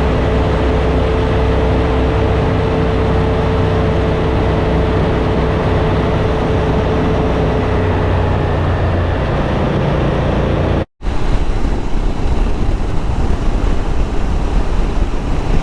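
Suzuki V-Strom motorcycle riding along at a steady cruise: the engine running evenly under wind and road noise. The sound cuts out for an instant about eleven seconds in, then comes back with more wind rush.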